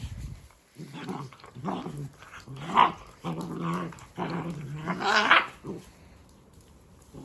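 Dalmatian puppies growling and grumbling at play, a string of short growls starting about a second in.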